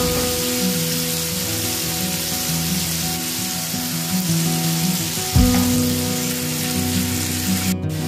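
Sliced onions sizzling steadily as they fry in hot oil, with a sharp knock about five seconds in as green chillies are tipped into the pot. Background music with held notes plays underneath.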